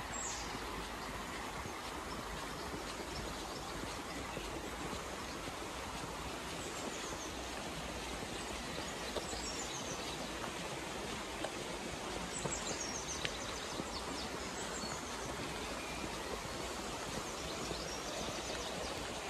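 The Bessbrook River flowing steadily, a constant rushing of water. A small bird sings short falling trills several times above it.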